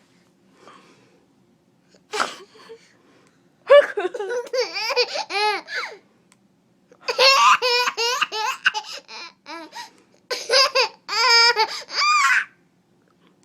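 A baby laughing in three bouts of high-pitched peals, set off by a person's short sneeze about two seconds in.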